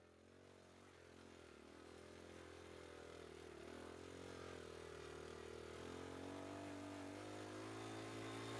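1970 Honda Trail 90's small single-cylinder four-stroke engine running as the bike rides a dirt trail. It fades in from silence and grows steadily louder, its pitch wavering up and down with the throttle.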